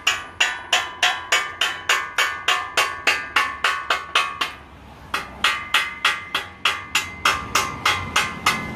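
Chipping hammer striking a stick weld on steel to knock off the slag: rapid, even, ringing metallic taps, about four to five a second, with a short pause a little past halfway.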